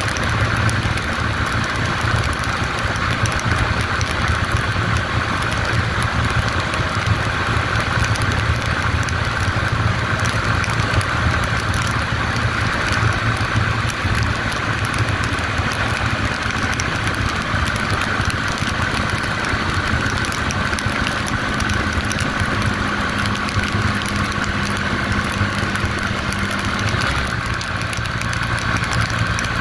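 Small 150 cc Yamaha motorcycle engine running steadily at highway cruising speed, heard from on board with wind noise. Near the end the engine note drops a little as the bike slows.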